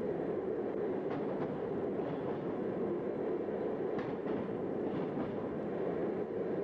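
Train running through a tunnel: a steady dense rumble of wheels and carriage, with a few sharp clacks about a second in and again near four and five seconds in.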